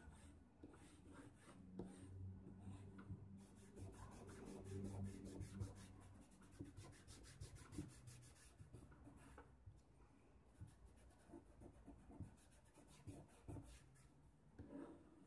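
Faint scratching and rubbing of a charcoal stick shading on drawing paper, in short irregular strokes.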